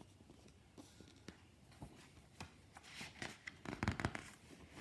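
Pages of a hardcover picture book being handled and turned: faint paper rustling and soft ticks, loudest about three to four seconds in.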